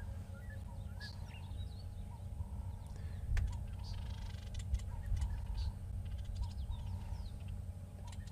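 Southern masked weavers chirping and chattering at their nest colony: many short, quick high calls and a few sharp ticks, with a shorter call repeating about once a second, over a low steady rumble.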